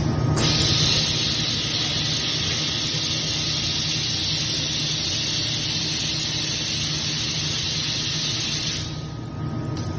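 Gildemeister Sprint 65 Linear CNC lathe running, with a steady hiss of spray starting just after the beginning and cutting off about nine seconds in, over a low steady machine hum.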